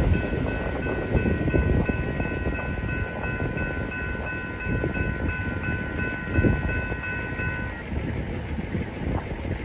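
Railroad crossing warning bell ringing rapidly and steadily while the gates stay down after the train has cleared, then stopping about eight seconds in as the crossing clears. A low rumble from the departing train runs underneath.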